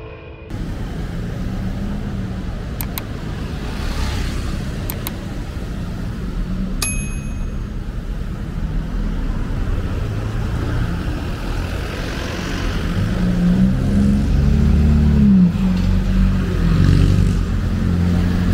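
Road traffic: cars and motorcycles driving past close by, engines and tyres, with a vehicle passing louder and nearer about two-thirds of the way through. A single short bright ding rings out about seven seconds in.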